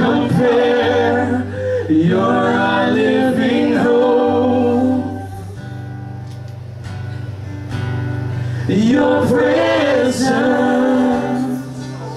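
Live worship band: several voices singing long, held phrases of a slow song over acoustic guitar and steady low notes, with a quieter instrumental stretch in the middle.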